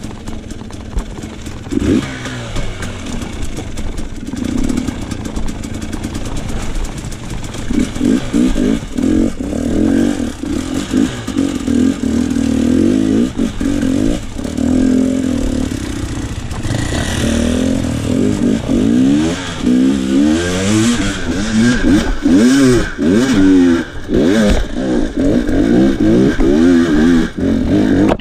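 Enduro dirt bike engine revved up and down in short, repeated throttle bursts, the pitch climbing and dropping again and again. The revving gets busier and louder in the second half.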